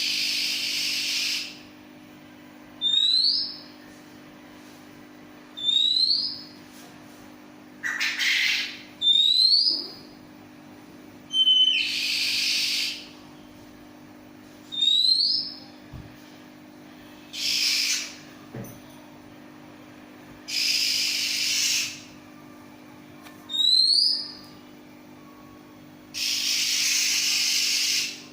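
Oriental magpie-robin (kacer) singing: short rising whistled notes alternating with harsh, scratchy phrases a second or two long, one phrase every two or three seconds. A steady low hum runs underneath.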